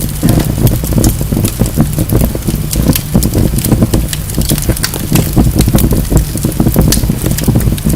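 Wood fire burning in a fireplace: a steady low rumble under frequent, irregular crackles and pops from the burning logs.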